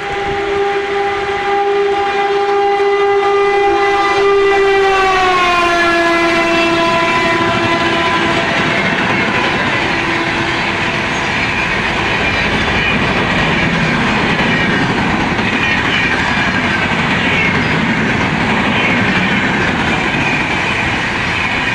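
An express train passing at high speed. The WAP-7 electric locomotive's horn is held as it approaches, and its pitch drops sharply about five seconds in as it goes by. Then comes a long, loud rush and clatter of the coaches.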